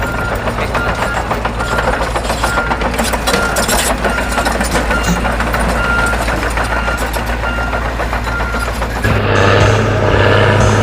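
Excavator running, with a short high warning beep repeating about twice a second. A little after nine seconds a louder, deeper hum takes over.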